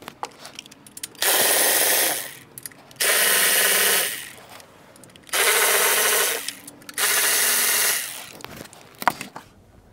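Power tool running in four short bursts of about a second each, backing out the fasteners that hold the cover on a 6.5L diesel engine, with small clicks between the bursts.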